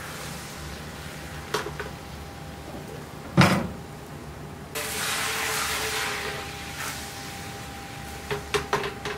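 Beaten egg poured into a frying pan for a thin egg sheet, a splashing hiss a little past the middle. A loud knock comes about three and a half seconds in, and a few sharp clicks near the end.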